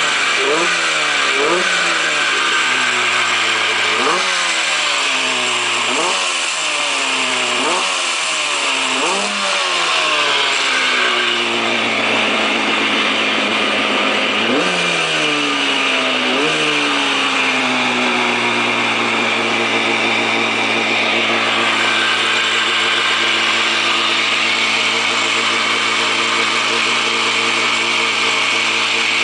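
Arctic Cat Tigershark Daytona 770 jet ski's two-stroke engine being blipped over and over, each rev rising sharply and falling back, about every second and a half for the first ten seconds, twice more a few seconds later, then settling into a steady idle.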